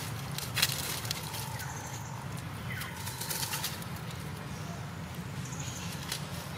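Dry fallen leaves rustling and crackling under long-tailed macaques' hands and feet as a mother and baby move about, in irregular clusters of crackles. A few faint chirping calls sound in the background.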